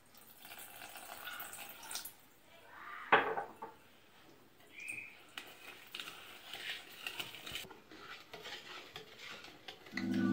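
Wire whisk stirring and scraping through cake batter in a ceramic bowl, its wires clinking against the bowl, with one sharp clink about three seconds in.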